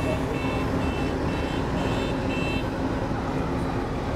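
Electronic warning beeper of harbour machinery sounding a quick series of short high beeps, two or three a second, which stop about two and a half seconds in. Under it runs a steady low machinery hum.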